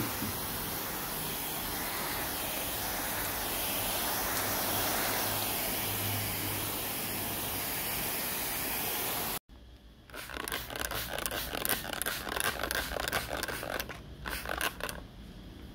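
Mist nozzles on a garden hose spraying fine water mist with a steady, even hiss. After a sudden cut about nine seconds in, a hand trigger spray bottle is pumped rapidly, giving a quick run of short squirts.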